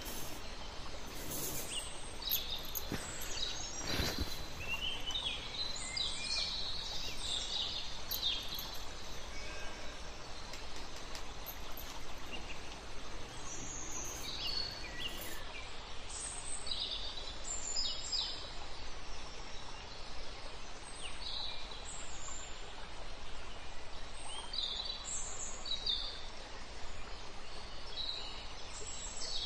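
Small birds chirping on and off in short, high calls over a steady background hiss. A few sharp clicks in the first four seconds.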